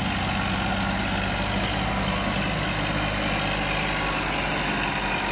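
Sonalika farm tractors' diesel engines running steadily at an even level.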